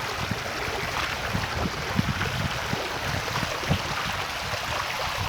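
Steady rushing of flowing floodwater.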